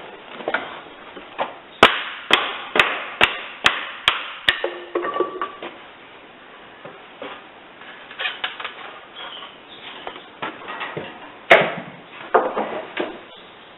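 Hammer strikes: a run of seven sharp blows about two a second, then scattered lighter knocks and taps, with one more hard blow near the end.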